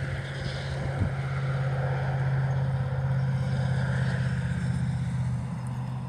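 A motor engine running steadily with a low hum, getting louder toward the middle and easing off near the end.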